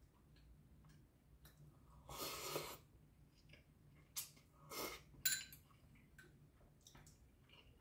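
Quiet eating of instant noodles: a short noisy rush about two seconds in and two more around the middle, with small sharp clicks of a fork against a ceramic bowl.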